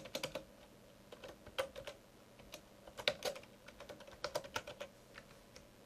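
Computer keyboard keys clicking in short irregular runs of typing, with brief pauses between the runs; the typing stops a little over a second before the end.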